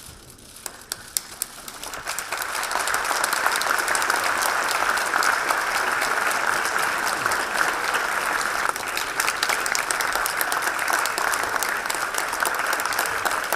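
A hall full of people applauding. A few scattered claps at first, then dense, steady clapping from about two seconds in.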